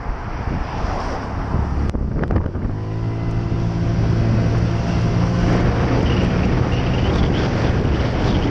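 Honda PCX 125 scooter's single-cylinder four-stroke engine running as the scooter rides on, its hum growing louder and settling steady about three seconds in, under wind buffeting the microphone. A couple of sharp knocks about two seconds in.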